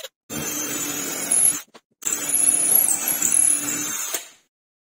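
Wood router running in a homemade router table, a steady motor whine with the hiss of cutting, heard in two stretches that each cut off abruptly; it stops for good a little past four seconds in.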